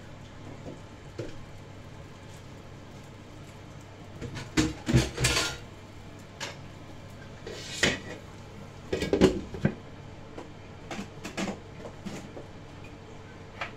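Cookware clattering: a utensil knocking against a wok and a glass lid being set down on it, in two loudest clusters about five and nine seconds in, with a few lighter knocks later. A steady low hum runs underneath.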